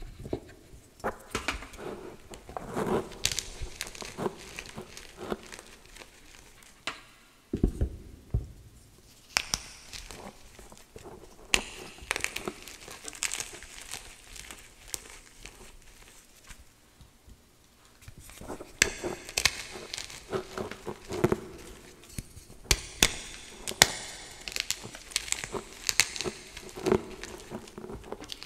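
Blocks of gym chalk crushed and crumbled by hand into wet chalk slurry: irregular crunches and crackles with soft squishing, quieter for a few seconds around the middle.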